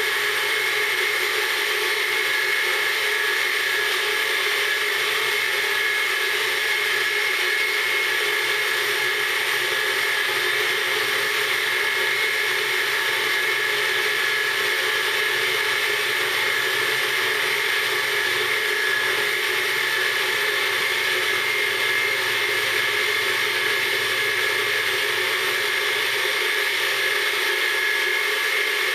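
BF20 mini milling machine spindle running at about 3200 rpm while an end mill side-cuts 6061 aluminium on a slow hand-fed conventional pass: a steady whine with several high-pitched tones. The setup leaves a rippled finish on the side wall.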